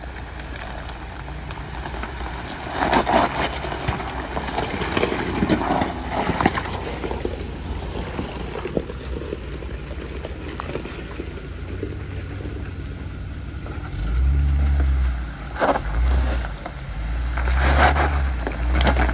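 4x4 driving along a slick dirt trail: the engine runs steadily under irregular knocks, rattles and scraping over rough ground. A heavier low rumble sets in for the last few seconds.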